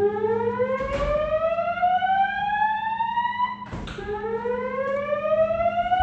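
Fire alarm speakers of a Notifier NFS2-640 voice-evacuation system sounding the slow-whoop alert tone, the evacuation signal of a full alarm: two rising sweeps, each climbing for nearly four seconds before starting again low. A short click sounds about a second in and another near the end of the first sweep.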